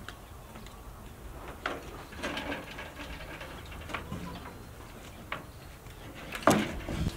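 Footsteps on dirt and scattered light knocks as a person walks carrying a metal basin, with one louder knock near the end.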